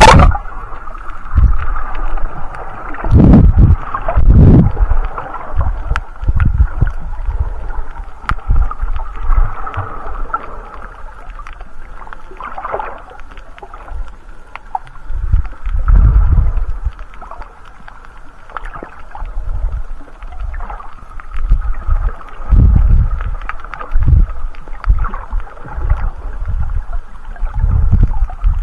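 Muffled underwater sound picked up by a snorkeller's camera below the surface: water sloshing and rushing, with low thumps every second or two from the swimmer's movement through the water.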